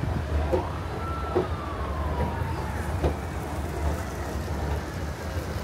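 City traffic rumble with a faint, distant siren-like tone. The tone holds a note about a second in, then slides down in pitch and fades.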